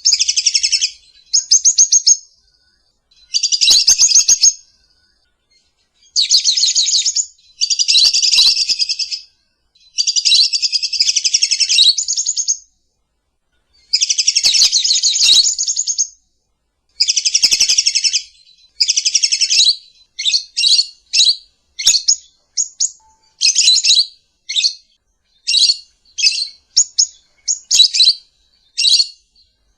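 Lovebird singing: rapid, chattering trills in bursts of one to two seconds separated by short pauses, giving way in the second half to short quick chirps, about two a second.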